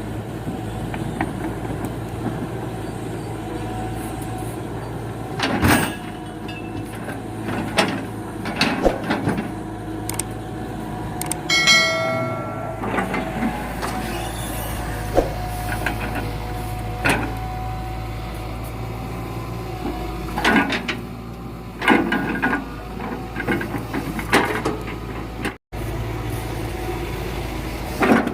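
Diesel engine of a hydraulic excavator running steadily while rubberwood logs are handled, with scattered knocks and clatters throughout. A brief high-pitched squeal comes about twelve seconds in.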